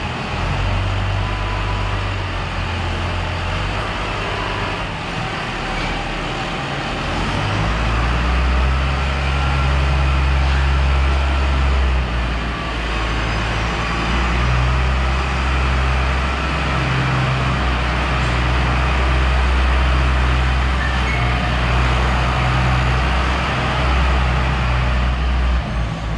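Farm tractor's diesel engine running under load as its front loader lifts and moves square straw bales, the low engine note shifting up and down several times as it works.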